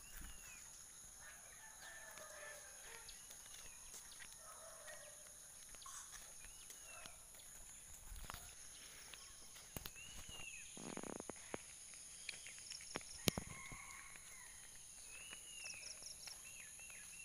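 Birds calling: short rising-and-falling calls every few seconds, with a brief buzzing call about ten seconds in, over a steady high-pitched drone. A sharp click stands out about thirteen seconds in.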